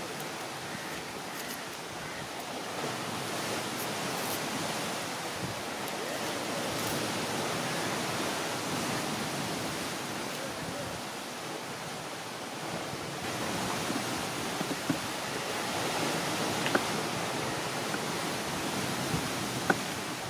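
Steady wash of sea surf and wind on the shore. A few short, sharp clicks sound in the second half, the loudest near the end.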